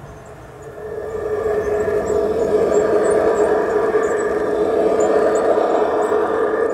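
Large-scale model diesel locomotives running past close by on garden-railway track, a steady mechanical hum that swells about a second in as they approach.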